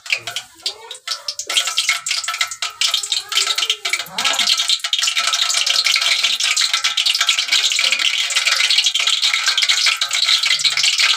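Cinnamon sticks and cardamom frying in hot oil in a metal pot, sizzling and crackling. The sizzle turns steady and dense from about a second and a half in.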